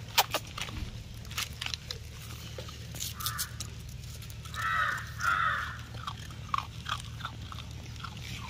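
Scattered small clicks and taps, with three short harsh animal calls about three to five and a half seconds in.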